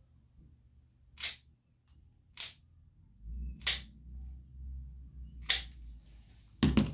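Plier-style dog nail clippers snapping through a Lhasa Apso's toenails: four sharp clicks, one every second or two.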